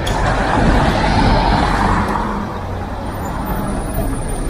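Road traffic: a vehicle passing close, its noise swelling about a second in and easing off, over a steady low engine rumble.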